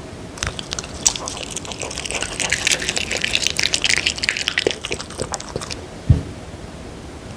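A maltipoo licking and eating a soft dog cake: a dense run of wet smacking and licking clicks for about five seconds, then a single low thump.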